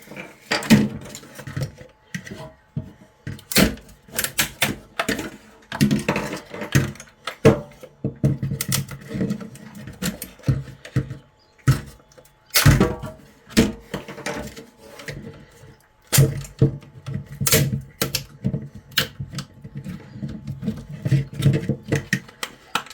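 Irregular clicks, snaps and clacks of hard plastic: 3D-printed armour pieces being broken off their printed support layer with pliers and handled on a work surface.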